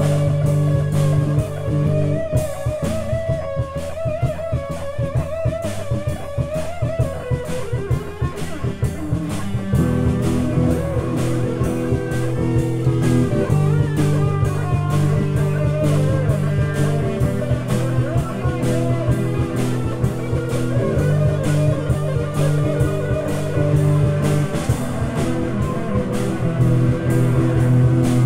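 Instrumental psychedelic rock jam on electric guitars and drum kit. A lead line slides and bends in pitch over sustained low chords, which drop out and come back several times, while the drums keep a steady beat.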